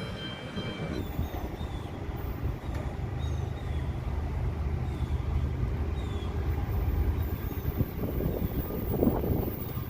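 Passing CSX freight train: a steady low rumble, with a few held high tones that cut off about a second in.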